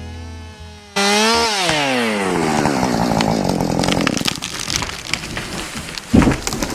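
Chainsaw running hard, then its engine pitch falling away as the throttle comes off. Cracking and crashing follow as the felled tree comes down, with heavy thuds near the end as it hits the ground.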